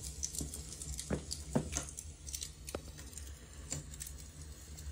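Crackling log fire from a fireplace video playing on a TV: irregular small pops and snaps over a low steady hum.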